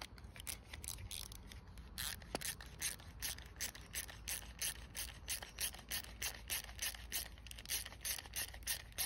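Ratchet wrench clicking steadily, about four to five clicks a second, as a bolt is turned out.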